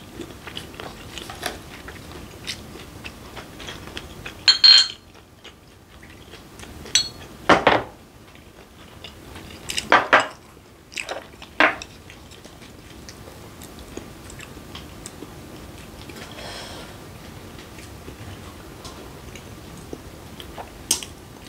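A person eating raw fish and squid sashimi: close chewing, with chopsticks and dishes clicking on the table many times. There are a few louder short clatters, at about five, seven and a half, ten and twelve seconds in.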